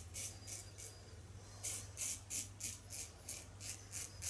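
Mühle R41 double-edge safety razor scraping through lathered stubble in short rasping strokes, about four a second, with a brief pause about a second in.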